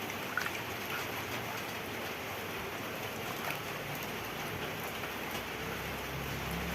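Water running steadily into a bucket as it is refilled with fresh water. A low hum joins in near the end.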